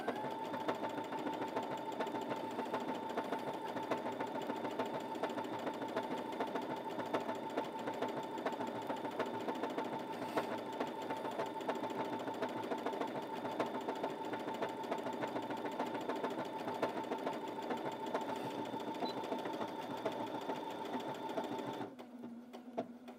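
Brother Innov-is A65 computerised sewing machine sewing a decorative stitch at a steady speed: a steady motor whine with fast, even needle ticking. It stops abruptly near the end as the machine finishes the pattern.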